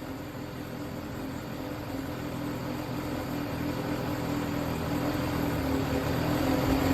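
Yamaha XJR400 air-cooled inline-four motorcycle engine running steadily at idle, growing gradually louder, with no knocking or other abnormal noise.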